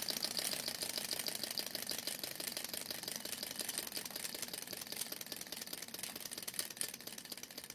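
Small model Stirling hot-air engine turning a helicopter rotor, running on the heat of a small alcohol burner, its linkage giving off a rapid, even light clatter that grows gradually quieter toward the end.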